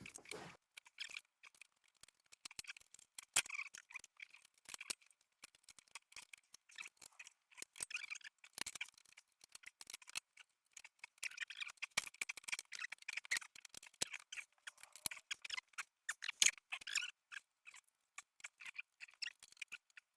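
Faint, irregular clicks, taps and short scraping noises of hands working with metal parts, as a home-welded metal pannier rack is fitted onto a motorbike.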